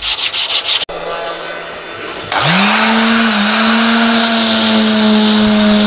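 A strip of sandpaper rubbed rapidly back and forth around a wooden handle, cut off about a second in. A couple of seconds later an electric sheet sander starts up, its motor rising in pitch and then holding a steady hum, with the hiss of 180-grit paper working the edge of a wooden board.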